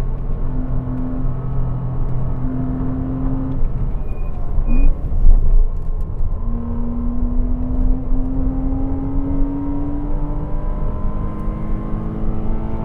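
Porsche Cayman 987's 2.7-litre flat-six running under load, heard with heavy road and wind rumble. The engine note holds steady and breaks with a short blip about five seconds in, then climbs slowly as the car accelerates.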